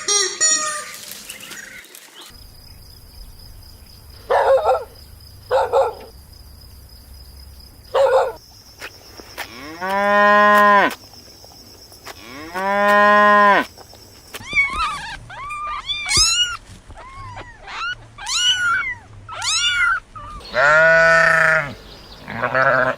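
Cattle mooing: long, drawn-out moos a little under halfway through, again shortly after, and once more near the end. Shorter, higher-pitched animal calls come between them.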